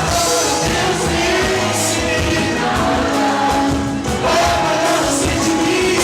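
Live pagode, a Brazilian samba style, played by a band with several voices singing together over steady samba percussion.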